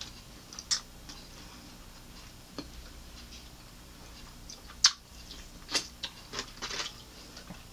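Close-up eating of crispy fried chicken wings: scattered short crunches and chewing sounds, the loudest about five seconds in.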